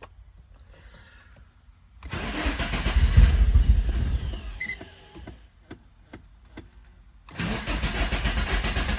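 A car engine cranking on the starter without catching, in two bursts of about three seconds each with a pause between. It is a no-start that the owner takes for flooded cylinders.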